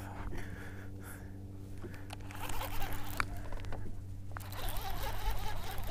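Baitcasting reel being cranked in stretches, its handle and gears whirring, while a small hooked fish, taken for a bream, is reeled in; a low steady hum runs underneath.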